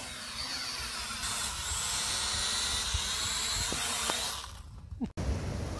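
Small folding quadcopter drone's propellers whirring with a high-pitched whine, the pitch stepping up a little once or twice, then stopping after about four and a half seconds. Wind rumble on the microphone follows briefly near the end.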